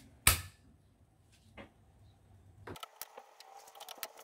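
A circuit breaker toggle switched off with one sharp click, followed by a fainter click and small ticks of hands working in the breaker panel.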